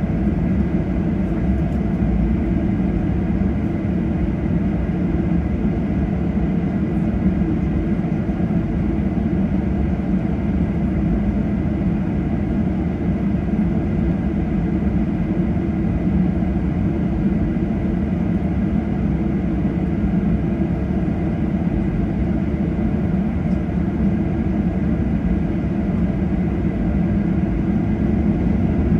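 Steady low rumble inside the cabin of a Boeing 737-800 with its engines running, even in level throughout with no rise or change.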